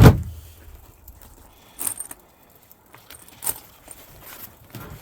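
A loud thump, then items being rummaged through in a bag, with a few light clinks and rustles.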